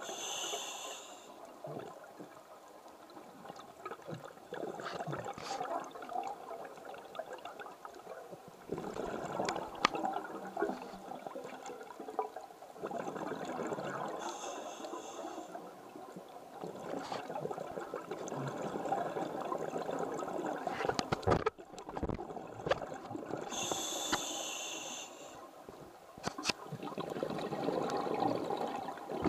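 Scuba diver breathing underwater through a regulator: three short hissing inhalations, each followed by a long bubbling, gurgling exhalation. A few sharp clicks stand out between them.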